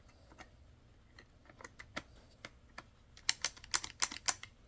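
A series of small, sharp clicks and taps that turn into a quick cluster of louder clicks about three seconds in: wires and small plastic parts being handled and pressed into place on a chainsaw during reassembly.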